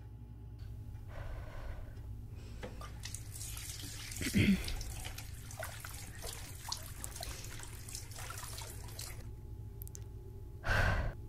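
Tap water running into a washbasin, with small splashes and drips as hands work in the stream, and one louder splash about four seconds in. The water stops a little after nine seconds, and a short loud sound follows near the end.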